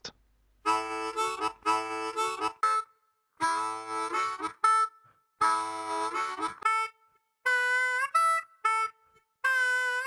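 Background music on a harmonica: three short phrases of chords with brief breaks between them, then single held notes from about seven seconds in.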